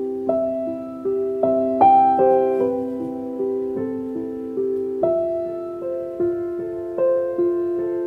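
Background piano music: a slow, gentle melody of single notes struck about every half second and left to ring over held lower notes.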